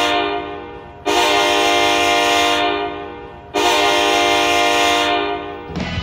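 Sault Ste. Marie Greyhounds goal horn sounding in repeated long blasts of about two and a half seconds each, every blast fading at its end. A new blast starts about a second in and another about three and a half seconds in, and the goal song starts near the end.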